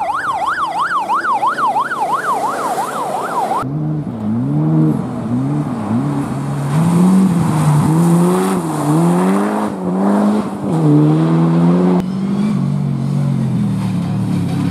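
A course car's siren wailing quickly up and down, about three sweeps a second, cut off abruptly after nearly four seconds. Then rally car engines rev hard as they pass, the pitch climbing and dropping with each gear change: first a Mitsubishi Lancer Evolution, then a Subaru Impreza.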